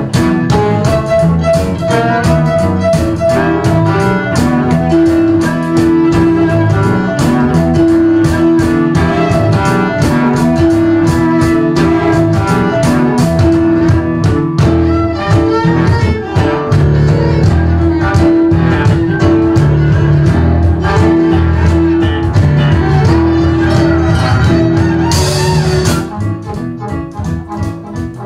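Live acoustic band playing: violin and acoustic guitar with a wind instrument and quick struck notes, dense and busy. Near the end a brief high hiss, then the music drops much quieter.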